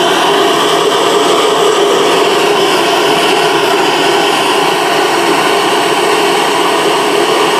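Gas torch flame burning steadily against a crucible, an even rushing hiss with no change in pitch or level, as the crucible's glaze is fired on.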